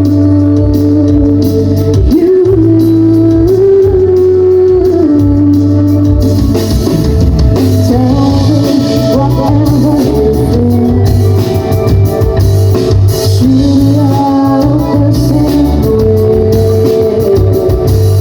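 Live band playing a song with singing: held melody notes over heavy bass and drums, with the cymbals fuller from about six seconds in. Loud, as recorded from the crowd.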